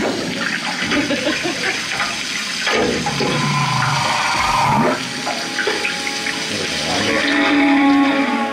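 Humpback whale song played through a boat cabin's loudspeaker: moans and whoops that slide up and down in pitch over a watery hiss, with a long falling sweep about three seconds in and a rising call near five seconds.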